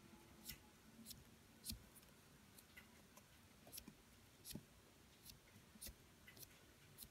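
Faint, irregular light clicks and ticks, about two a second, of a cotton swab scraping and tapping around inside the plastic case of an XRAY XB4 gear diff as the oil is wiped out of the main chamber.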